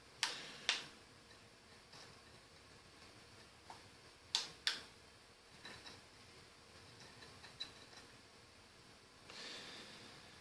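Two pairs of sharp clicks from a Weller 240/325-watt soldering gun's trigger as it is switched on and off during soldering, with a few fainter ticks and a short soft hiss near the end.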